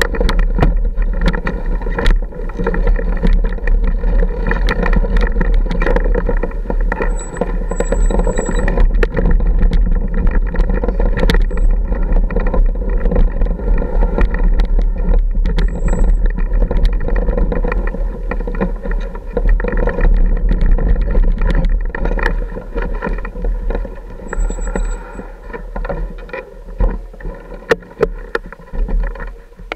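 Off-road motorcycle engine running at low, steady revs while riding slowly over a rough rocky trail, with frequent knocks and clatter from stones and the suspension. It gets quieter in the last few seconds.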